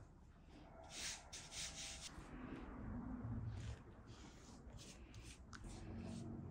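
Hands and a brush rubbing over a thin sheet of rolled dough on a wooden board: soft, repeated short swishing strokes as the sheet is smoothed and brushed.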